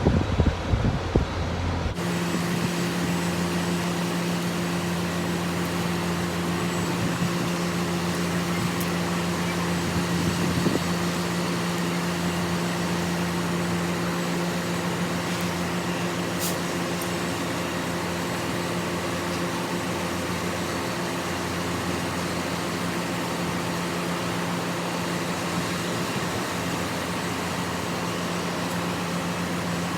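Steady drone of an idling engine with a constant low hum and no change in speed. A few knocks and handling noises come in the first couple of seconds.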